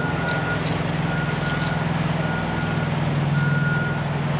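A truck's reversing alarm beeping about once a second, each beep about half a second long, over the steady running of a semi truck's diesel engine.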